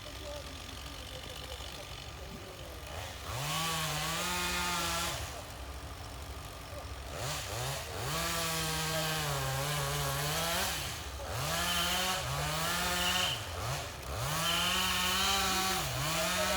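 Harvester head's saw bucking logs to length, cutting about four times in a row. Each cut rises in pitch, holds, then drops away, over the steady rumble of the machine's engine.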